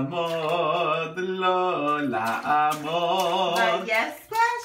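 An adult singing a slow song to a baby, long held notes with a wavering pitch and no clear words. Near the end a baby's high voice cuts in.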